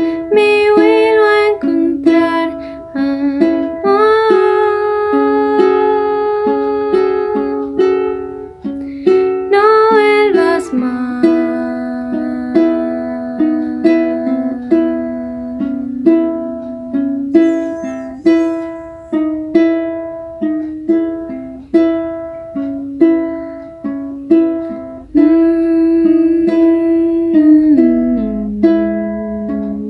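A woman singing over her own ukulele accompaniment. Her voice drops out about eleven seconds in, and the ukulele plays on alone, with picked notes ringing out about once a second.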